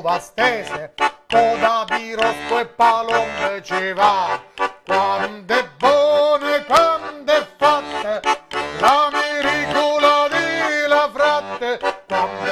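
Diatonic button accordion playing a lively folk tune, with bass chords pulsing on the beat, while a man sings along in a traditional style.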